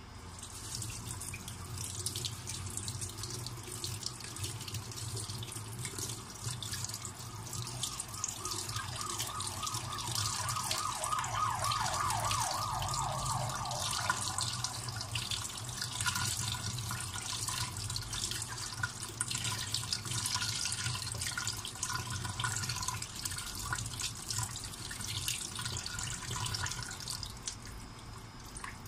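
Water running steadily from a tap and splashing into a sink, shut off near the end.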